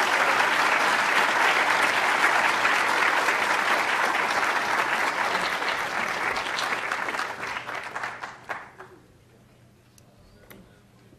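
Audience applauding, dense and steady for about seven seconds, then dying away by about nine seconds in, with a few last scattered claps near the end.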